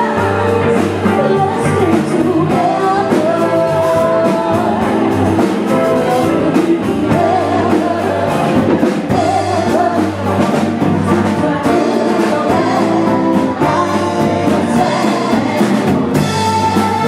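A band playing a song with a singer and a steady drum beat.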